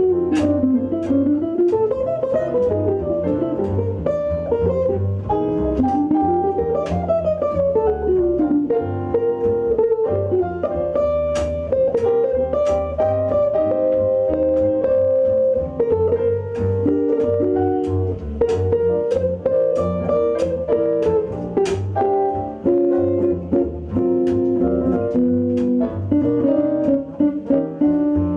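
Live swing jazz instrumental: a guitar plays fast single-note solo runs over a bass line and keyboard piano chords, with no singing.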